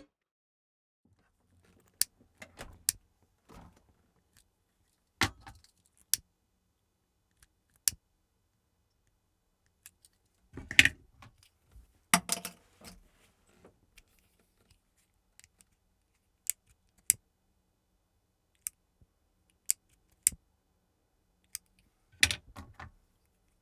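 Various lighters being clicked and struck: a series of separate sharp metallic clicks and snaps with pauses between them, and two longer scraping strikes about eleven and twelve seconds in.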